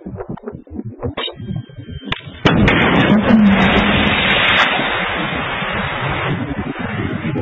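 Anti-tank guided missile fired close by: a brief high tone, then about two and a half seconds in a sudden loud launch blast that runs straight into a steady rushing hiss as the missile flies off, easing over the last couple of seconds.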